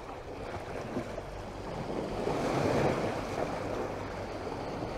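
Small lake waves lapping and washing against shoreline rocks, swelling briefly about halfway through.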